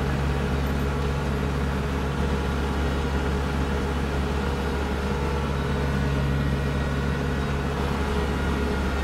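Kubota Grand L4760 tractor's diesel engine running steadily under load while driving its front-mounted snowblower through snow, heard from inside the cab as a constant low drone.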